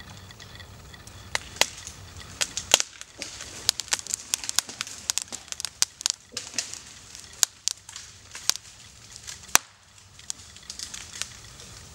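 Hinge wood of a poplar (aspen) cracking in many sharp, irregular snaps and pops as the tree leans further over. The fibres are tearing under the bend as the hinge works toward failure, and the loudest cracks come about three seconds in and again near ten seconds in.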